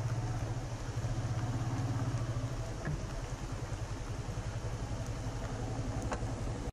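Motorcycle engine running at low revs with a steady, even pulsing beat as the bike rolls slowly to a stop.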